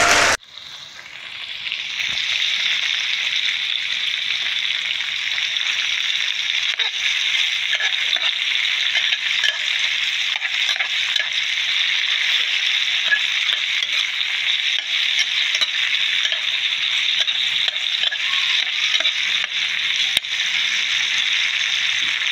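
Chopped tomatoes sizzling in hot oil in a frying pan, with a spatula stirring and scraping them. The steady sizzle fades in over the first couple of seconds, with small crackles and ticks throughout.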